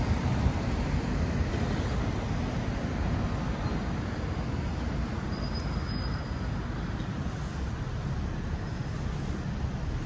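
Road traffic on a busy city street: a steady low rush of passing cars, a little louder in the first second or so.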